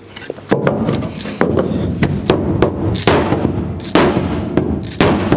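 Repeated hard blows on the sheet-steel floor pan of a Chrysler CH through a block of wood, about a dozen strikes at roughly two a second, each with a short metallic ring, knocking a raised, kinked section of floor back down.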